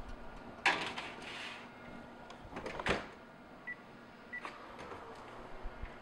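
A metal baking sheet clatters onto a wire oven rack, and about three seconds in the oven door shuts with a knock. Two short high electronic beeps from the oven's control panel follow, with a few faint clicks near the end as the oven is opened again.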